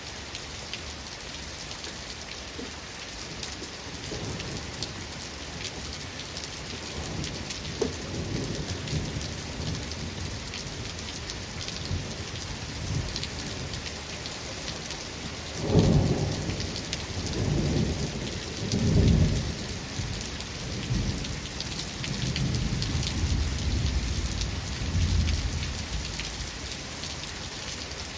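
Steady rain falling, with rolling thunder. Low rumbles start about four seconds in, swell to the loudest peals past the middle, and fade near the end.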